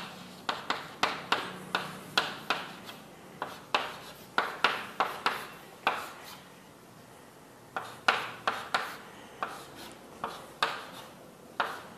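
Writing on a board: a series of short, irregular taps and strokes, about two a second, with a pause of a second or so about halfway through.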